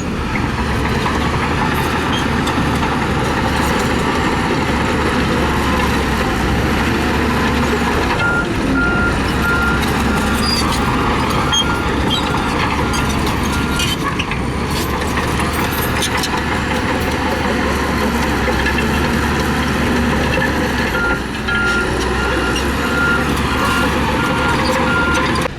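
Heavy earthmoving machinery running with a steady engine rumble. A reversing alarm beeps in a regular pulse about a third of the way in, stops just past halfway, and beeps again near the end.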